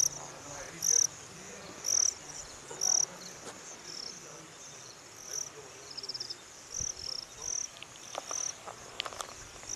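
Insects chirping in tall grass: short high chirps about once a second, coming more often and less regularly in the second half, with a brief rapid trill about six seconds in.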